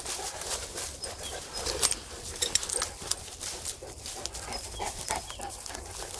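Neapolitan mastiffs moving about in leaf litter, one panting, while dry leaves and twigs crackle and snap underfoot.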